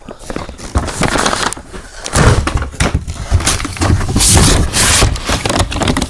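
Cardboard-wrapped firework cakes being handled and shifted in their case: a run of scraping, rubbing and knocking of cardboard, heavier from about two seconds in.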